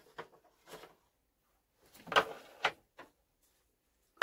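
A few short, separate clicks and knocks from hands handling things, the loudest about two seconds in, with quiet between them. The diesel heater is not running.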